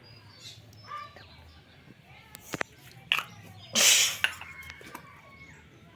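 A couple of sharp clicks, then a short hiss of an aerosol deodorant can sprayed once for about half a second, about four seconds in.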